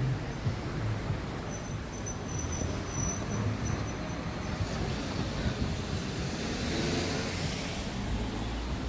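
City street traffic noise: a steady low rumble, with a vehicle swelling past about seven seconds in.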